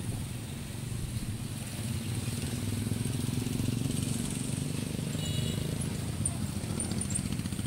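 Street traffic: a motor vehicle engine running with a steady low rumble that swells a little in the middle.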